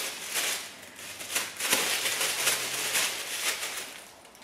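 Thin plastic packaging bag rustling and crinkling as it is handled and an item is pulled out of it. The sound fades out near the end.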